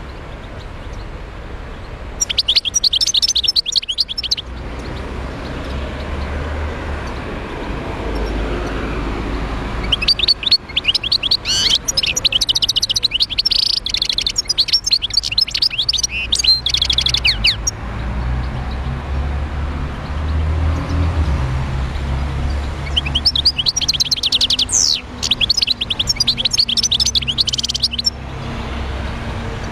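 A caged wild-caught European goldfinch singing: three bouts of fast, high twittering song, the middle one the longest, over a low steady rumble.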